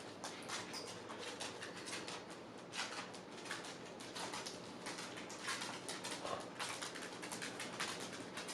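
Close-up eating sounds: a continuous run of irregular small wet clicks, as from chewing and lip-smacking.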